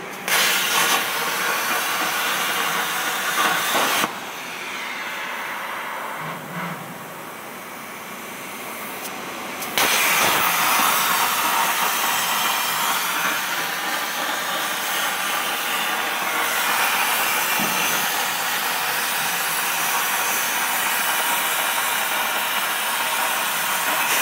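CNC plasma torch cutting steel plate: the plasma arc's loud, steady hiss. It starts just after the opening, drops away after about four seconds, comes back at about ten seconds and cuts off suddenly near the end.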